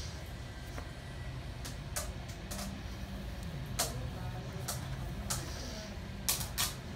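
A handful of small, sharp clicks and taps from a metal nail tool working against a hard artificial nail, the loudest two close together near the end, over a steady low background hum.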